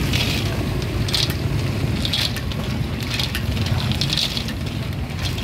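Cockles in their shells tipped into a hot wok of sauce and stirred with a metal ladle: short bursts of sizzling and shells scraping on the wok, about once a second, over a steady low rumble.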